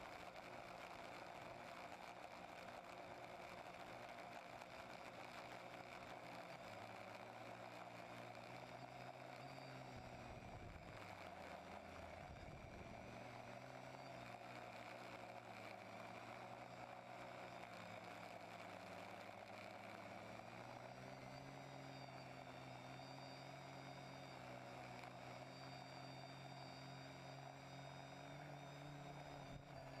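TBS Discovery quadcopter's electric motors and propellers humming faintly as it flies, several steady tones that shift in pitch as the throttle changes, with a dip about ten seconds in.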